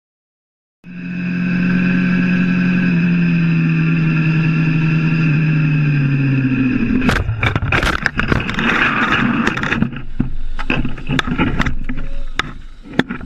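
A vehicle engine running at steady revs starts about a second in, drops slightly in pitch, then winds down. At about seven seconds a crash begins: a run of loud impacts and scraping clatter as the vehicle goes off the road, lasting several seconds and thinning out near the end.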